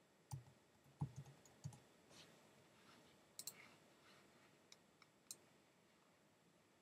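Faint keystrokes on a computer keyboard, about five over the first two seconds as a short word is typed, then a few scattered clicks.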